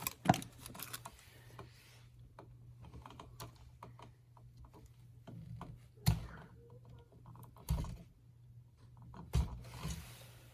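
Small clicks and ticks of hand tools and copper wire being worked, likely wire strippers on the outlet's black (hot) wire, with a few sharper knocks about a second and a half apart near the end. A steady low hum runs underneath.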